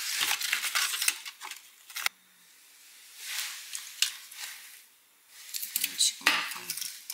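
Small plastic supplement sachets being handled and torn open by hand: crinkling and rustling in three short bouts, with a sharp click about two seconds in.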